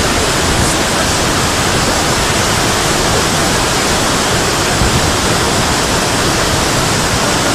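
A flash flood surging down a dry stream bed: a steady, loud rush of muddy floodwater.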